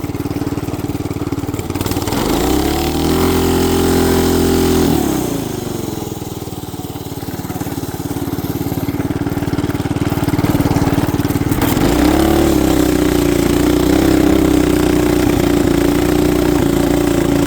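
Small 212cc single-cylinder engine on a minibike, running in the cold. It idles, revs up about two seconds in, drops back to idle near five seconds, then revs up again around twelve seconds and holds there. This is a cold engine that has been stalling, being blipped to keep it running.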